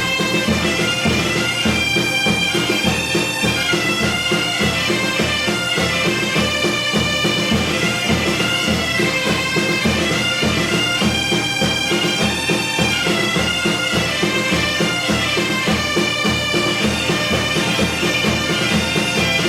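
Bagpipe music: a continuous, ornamented melody over a steady low beat.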